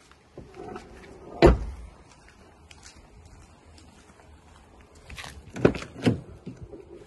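A car door is shut with one loud thud about a second and a half in. Near the end, clicks of a door handle and latch and two more thumps as a door on the other side of the car is opened.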